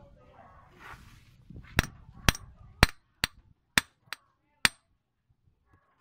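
Claw hammer striking the small metal fitting on a steel control cable laid on a wooden block: seven sharp metallic blows about half a second apart, starting about two seconds in, one of them lighter.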